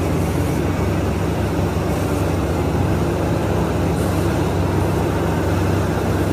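Steady low rumble of a running excavator's diesel engine, a continuous drone with no breaks.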